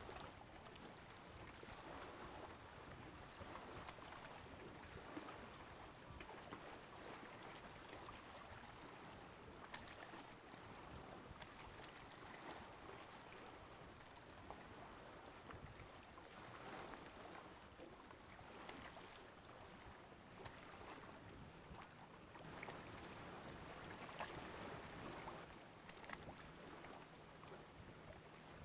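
Faint, steady wash of lake water and wind, slowly swelling and easing, with a few small clicks.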